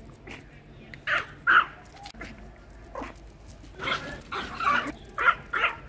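A dog barking: a string of short, separate barks, some in quick pairs, the loudest a little after a second in and again near the end.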